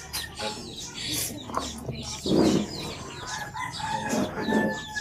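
Chickens clucking and a rooster crowing, with scattered short clicks.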